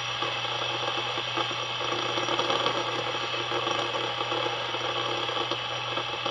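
Steel fidget spinner spinning freely, its bearing giving a steady whirring rattle.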